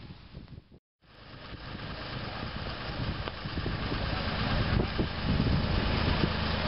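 A crane's engine running, with a steady low hum that grows stronger from about four seconds in. The sound drops out completely for a moment about a second in.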